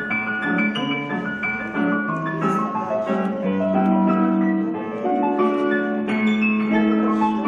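Piano music playing a steady, flowing melody over held low notes, accompanying ballet floor exercises.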